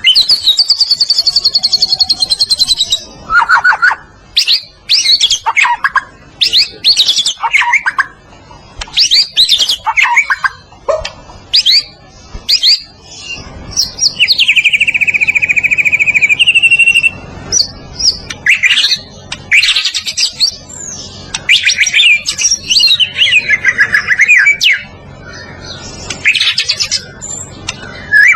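White-rumped shama singing continuously: a varied song of whistled phrases and fast trills, with a long, even trill of about three seconds near the middle.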